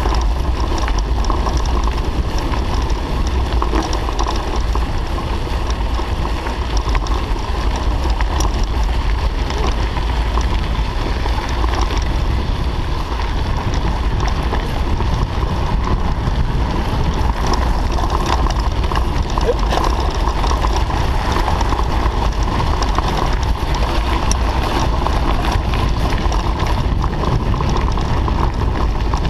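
Steady wind noise on a bike-mounted camera's microphone over the rumble of bicycle tyres rolling on a gravel road.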